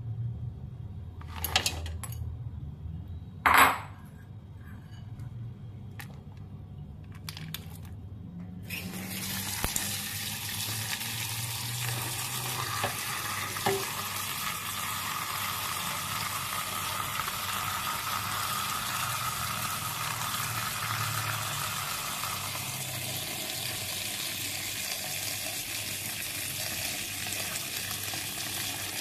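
A few clinks and knocks at a stainless steel pot as dried red dates and goji berries are tipped in, the loudest about three and a half seconds in. From about nine seconds in, tap water runs steadily into the pot, filling it.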